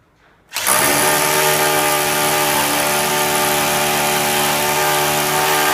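Electric drill starting about half a second in and running steadily at a constant pitch, drilling a hole through a mesh waterproofing membrane into the wall for a plaster fixing plug.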